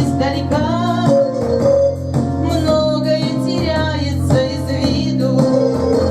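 A song: a voice singing a melody over keyboard accompaniment with sustained chords and a bass line.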